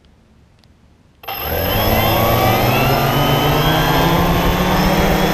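Cheerson CX-20 quadcopter's brushless motors starting about a second in, the propellers spinning up and running steadily. Heard close from the drone's own camera as a loud whine of several tones over rushing noise.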